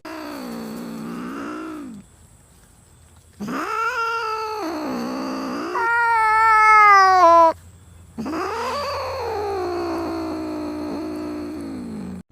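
A cat yowling in four long, drawn-out calls with short pauses between them; the third call is the loudest and highest, sliding down in pitch.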